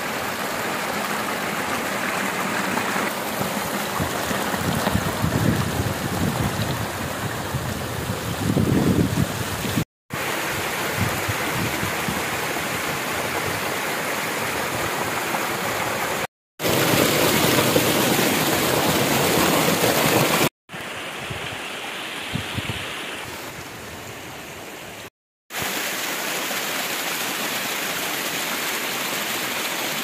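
Water of a small mountain waterfall rushing and splashing down over rocks, a steady rush that cuts out briefly four times and changes in loudness from one stretch to the next.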